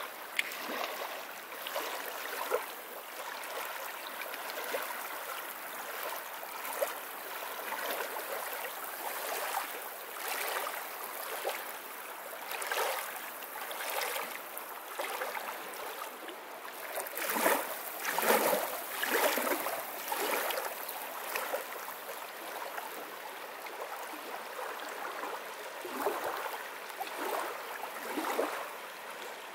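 Small waves lapping and washing up on a sandy lakeshore: a soft rushing splash that swells and falls every second or two, with a few stronger washes a little past halfway.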